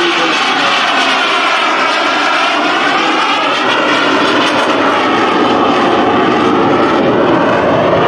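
Aermacchi MB-339 jet trainer's Viper turbojet running in a low, slow flyby, a loud steady jet noise whose tone slowly wavers up and down as the aircraft passes.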